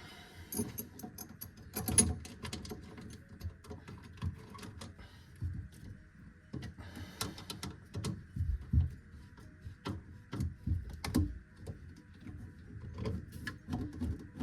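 Plumbing parts being handled and fitted under a kitchen sink during a garbage disposal install: scattered clicks, taps and knocks, the loudest about two seconds in and near the middle, over a faint steady hiss.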